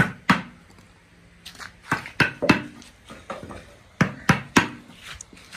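Sharp knocks of hand tools striking a piece of wood, about seven in all, mostly in quick sets of three.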